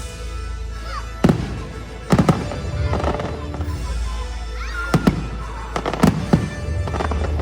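Aerial fireworks shells bursting in a string of sharp bangs, some in quick pairs, over the show's music playing from loudspeakers.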